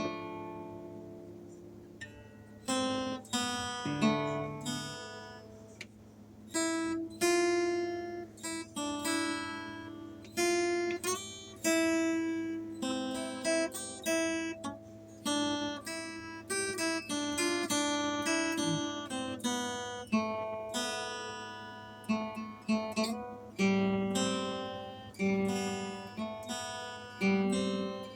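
Background music: acoustic guitar picking and strumming a melody, notes ringing out and fading.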